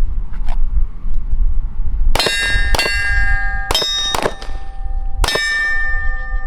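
Glock 19 9mm pistol fired at AR500 steel targets: about five shots in quick pairs, starting about two seconds in. Each hit leaves the steel plates ringing on at their own pitches.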